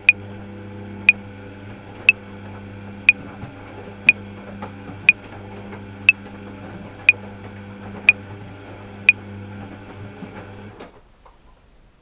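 Metronome clicking once a second at 60 bpm, ten clicks ending about nine seconds in, over the steady motor hum of a running top-loading washing machine, which cuts off suddenly about eleven seconds in.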